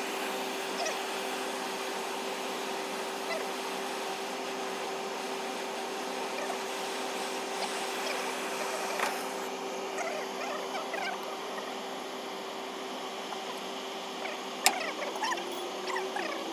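A machine running with a steady hum and a faint high whine. There is a single sharp click near the end, followed by faint, short squeaky chirps.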